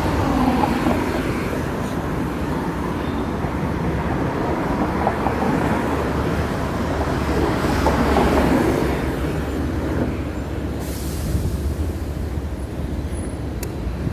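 Hong Kong double-decker tram running on its rails: a steady rumble from the wheels and motor, with a whine that rises and falls near the start and again about eight seconds in.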